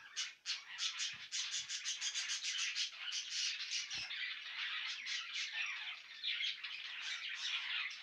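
A roomful of caged small birds, budgerigars and finches among them, chirping and chattering at once in a dense, unbroken high-pitched din, with a soft knock about four seconds in.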